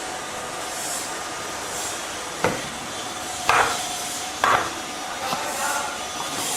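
Three sharp knocks about a second apart, each with a short ring, over steady background noise, with a softer knock near the end.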